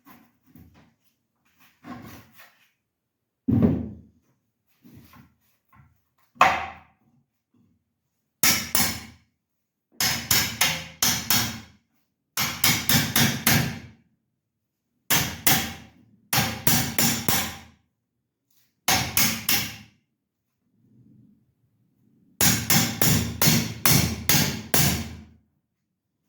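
Hammer blows struck in quick runs of several strikes, about three or four a second, with short pauses between runs. A few scattered knocks come before the first run.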